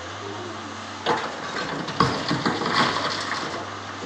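Rock and soil dumped from a Tata Hitachi 200 excavator's bucket into a steel dump-truck bed: a burst of rocks striking the bed about a second in, then a longer run of irregular clatter from about two to three and a half seconds. The excavator's diesel engine runs steadily underneath.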